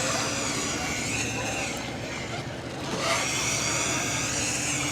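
Motorboat engine running steadily, a continuous low hum with a fast even pulse.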